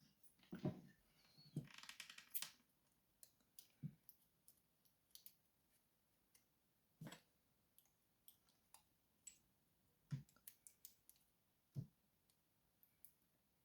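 Faint, scattered small metallic clicks and taps from hand tools and lock parts while a Sesamee padlock is being taken apart, busier in the first couple of seconds.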